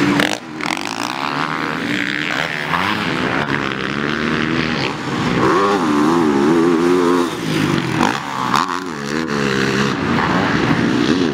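Several racing dirt-bike engines revving up and down and overlapping as the bikes ride the track, their pitch rising and falling, with the loudest passes about halfway through and near the end.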